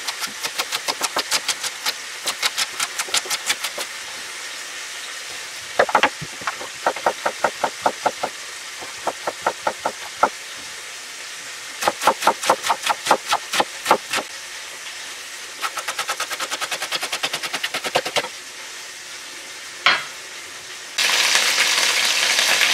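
Chef's knife chopping carrots and celery on a wooden cutting board: quick runs of sharp knocks, several a second, with short pauses between runs. Near the end, rabbit pieces start sizzling in hot fat in a roasting pan.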